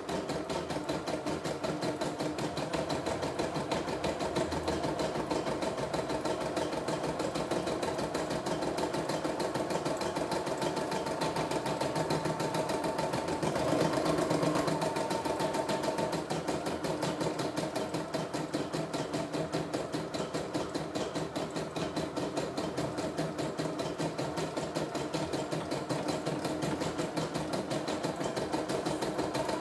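CNY E960 computerized embroidery machine stitching a design: the needle runs in a fast, steady rhythm while the embroidery arm moves the hoop. The sound gets a little louder about halfway through.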